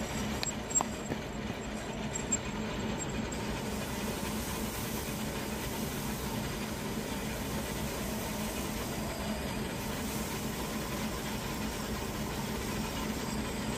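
Lathe running while a large twist drill cuts through the spinning metal workpiece, a steady machine noise with a low hum. Two short clicks come about one and two seconds in.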